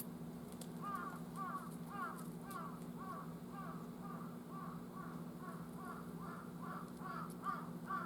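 Large-billed (jungle) crow calling: a long run of short caws, about two a second, starting about a second in.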